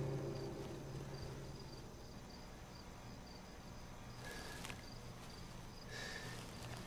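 The tail of a loud low hit dies away over the first second or two, leaving faint night ambience: a cricket chirping steadily, a couple of short high chirps a second, over a low hum. Near the end come two short breaths.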